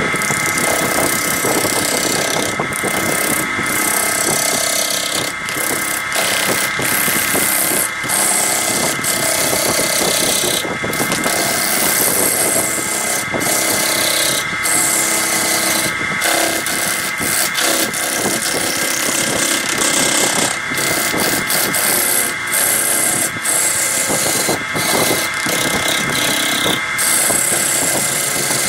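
Wood lathe running with a steady motor whine while a gouge cuts into a spinning green log blank, a continuous rasping cut that throws off shavings. The cutting noise breaks off briefly many times.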